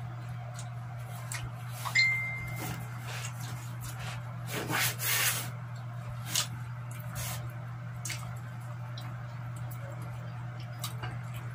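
Eating and food-handling sounds at a table: hands tearing roasted chicken and picking at food, with small clicks and rustles. A sharp clink that rings briefly about two seconds in, and a louder noisy stretch around five seconds, over a steady low hum.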